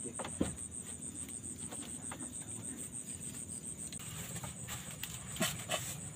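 Crickets chirping in a steady high-pitched pulsing trill, several pulses a second. A few sharp knocks or clicks stand out, about half a second in and twice near the end.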